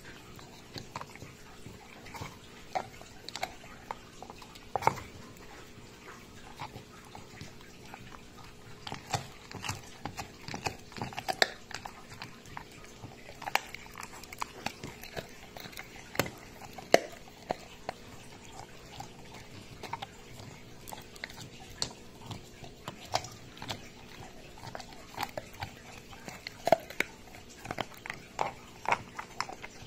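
Retriever dog chewing a meat bone: irregular crunches and sharp clicks of teeth on bone, spaced unevenly, some much louder than others.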